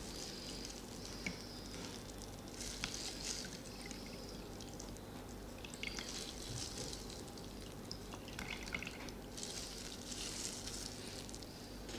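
Carrot juice dripping and trickling slowly out of a hole in a plastic bag as it is squeezed through a tissue filter. Faint small clicks and brief rustles come and go.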